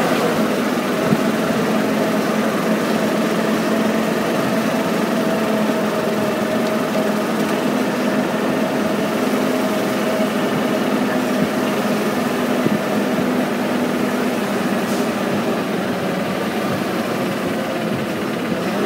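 Guest tram running along at steady speed, heard from aboard: an even engine and drive hum with a couple of held tones throughout.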